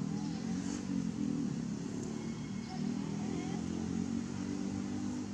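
A vehicle engine running, a steady low hum.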